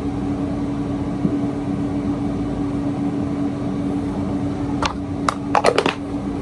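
Steady machine hum, a running appliance droning on one tone, with a few short clicks and knocks about five seconds in.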